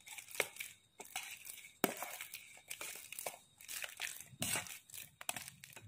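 Boiled potatoes being mashed with a metal potato masher in a stainless-steel bowl: repeated soft squishing presses, with short clicks where the masher meets the bowl, about two strokes a second.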